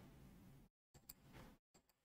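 Near silence: faint room tone with two faint clicks a little after a second in.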